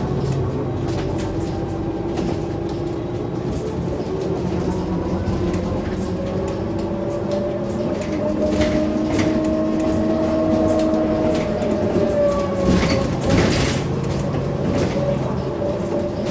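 Iveco Urbanway 12 city bus heard from inside the passenger cabin while driving: a steady engine and drivetrain drone whose pitch shifts, stepping down about eight seconds in, with interior rattles and clicks throughout and a louder rattling burst near the end.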